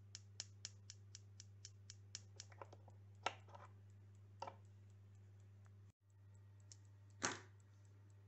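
Faint snapping of small ignition sparks from a CDI-fired coil jumping to its output resistor, about four snaps a second, matching the simulated 240 rpm (4 Hz) pickup signal, over a steady low electrical hum. The snapping thins out after about three seconds, and a single louder knock comes near the end.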